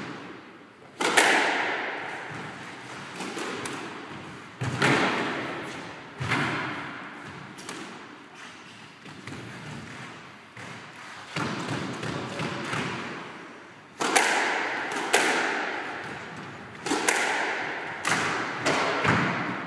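A squash rally: the ball is hit by rackets and smacks off the court walls, about a dozen sharp hits at uneven gaps of one to three seconds. Each hit is followed by a long echo in the enclosed court.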